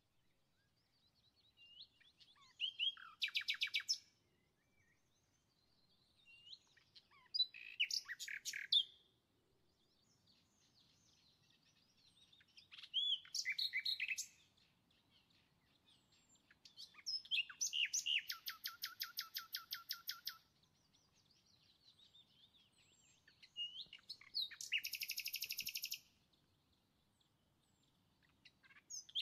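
A small songbird singing in short phrases, one about every five seconds. Each phrase is a few whistled notes ending in a fast trill, and the longest trill, in the middle, lasts about three seconds.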